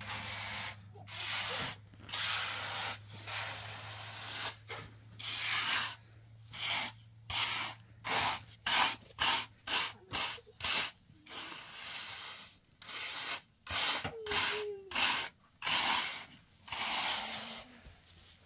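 Repeated scraping strokes of a trowel spreading and smoothing wet cement over a floor, about one to two a second, coming quicker and shorter in the middle.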